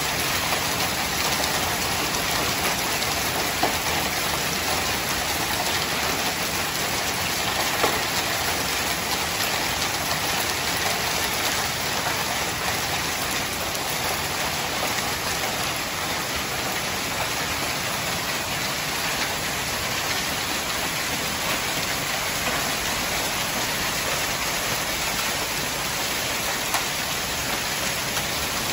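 Hail mixed with heavy rain falling, a dense, steady hiss with a few sharper single hits.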